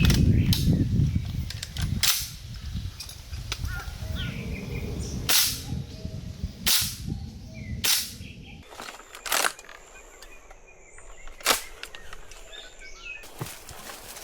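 Airsoft guns firing single shots: about seven sharp cracks at irregular intervals of one to two seconds, over low rustling and handling noise in the first couple of seconds.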